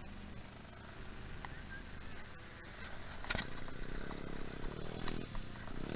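Small petrol engine of a mini bike running at a steady pitch, faint at first and growing louder over the last two seconds. There is a single sharp knock about three seconds in.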